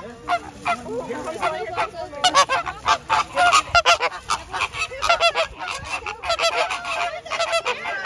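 A flock of birds giving goose-like honking calls, many short calls overlapping, growing denser about two seconds in.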